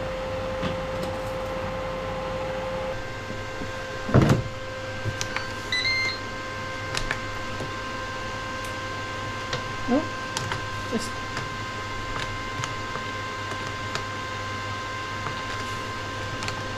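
Ninja dual-zone air fryer running with a steady whine whose pitch changes about three seconds in. A heavy clunk comes about four seconds in as a basket drawer is pushed shut, followed by short electronic beeps from the control panel as the timer is set, and a few light clicks.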